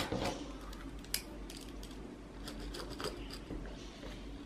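Quiet handling of quilted fabric and a clear acrylic ruler on a cutting mat, with a sharp click at the start, another about a second in and a few faint ticks after, as plastic Wonder Clips are fastened to the bag's sides.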